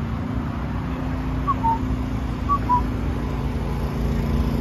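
A steady low engine rumble, with two short two-note whistled chirps about a second apart near the middle, each pair stepping down in pitch.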